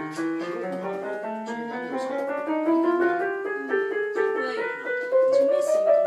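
Casio Tone Bank electronic keyboard played in a piano voice: a steady run of single notes stepping upward in pitch, about three or four notes a second.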